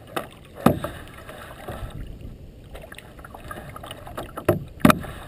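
Kayak paddling: a double-bladed paddle dipping and splashing beside a plastic kayak hull. A few sharp knocks and splashes stand out, the loudest just before the end.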